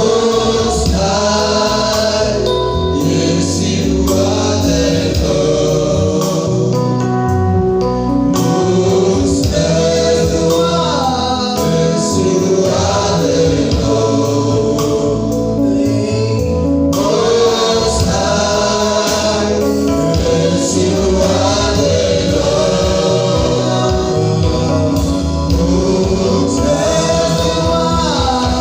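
Gospel worship music: a choir singing with instrumental backing, steady and loud throughout.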